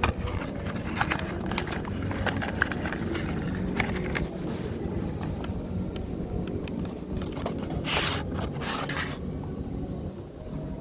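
Scraping and rubbing with scattered light clicks as car accessory parts are handled and fitted by hand, over a steady low hum. Two longer scraping swishes come about eight seconds in.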